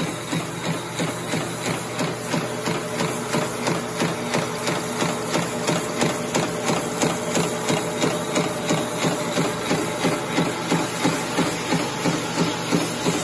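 Wire straightening and cutting machine running: a steady motor hum with a regular knock about two to three times a second.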